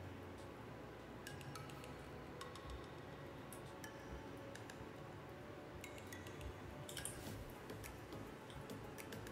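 Faint, irregular clicks of a computer mouse and keyboard, a few each second in places, over a low steady room hum.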